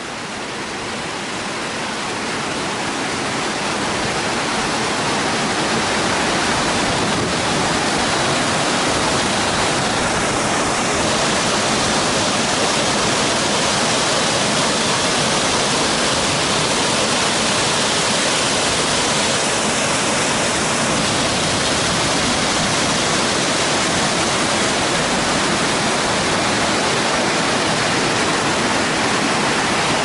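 Nunobiki Falls' Ontaki waterfall pouring down a rock cliff: a steady, dense rush of falling water. It grows louder over the first few seconds, then holds even.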